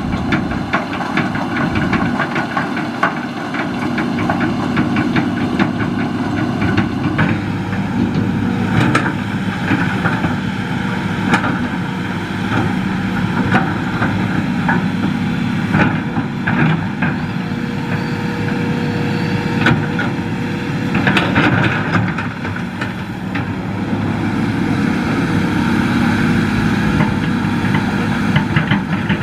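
Hitachi hydraulic excavator's diesel engine running steadily while it works, with occasional knocks from the digging.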